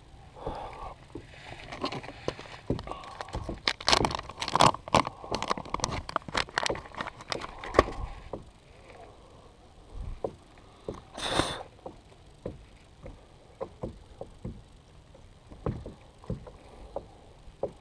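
Handling noise from fishing tackle in a plastic kayak: a dense run of sharp clicks and knocks for several seconds, then scattered lighter ticks, with one brief hiss a little past the middle.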